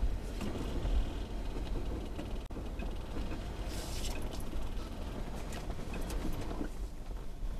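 A Lexus GX470 with a 4.7-litre V8 driving slowly over a snow-covered track: a steady low engine and tyre rumble with scattered clicks, and a brief hiss about four seconds in.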